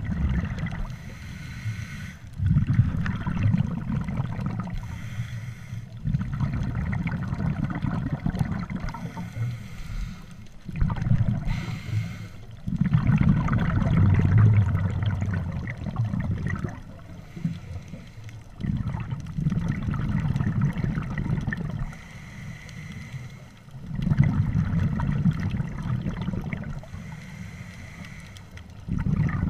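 Scuba diver breathing through a regulator underwater: bursts of exhaled bubbles rumbling and gurgling every few seconds, with quieter stretches of inhalation between.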